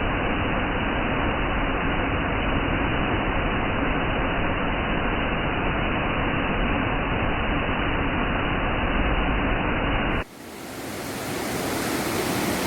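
Waterfall: a steady rush of falling water. About ten seconds in it cuts abruptly, drops away and swells back sounding brighter.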